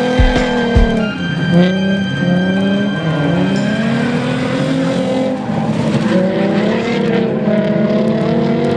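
Drift car engines revving hard, their pitch rising and falling again and again as the cars are driven through a drift.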